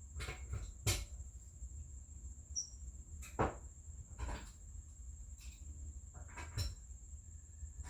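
Scattered sharp knocks and clicks of tools being handled, four of them spread over several seconds, over a steady high-pitched tone and a low hum.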